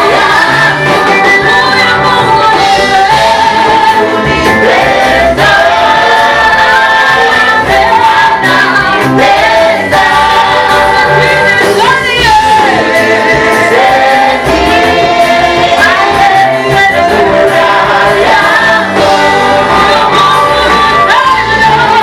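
A worship group singing a gospel praise song together over band accompaniment, loud and continuous, with the voices ringing as in a large hall.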